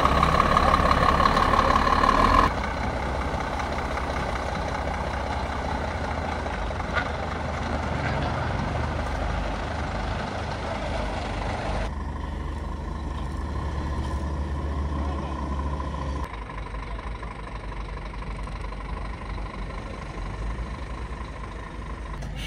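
Scania semi-truck's diesel engine running, a steady drone that is loudest for the first couple of seconds and then drops abruptly.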